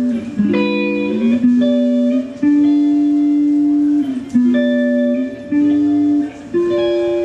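Music: a slow melody of long, held notes, a new note every second or so, with no drums.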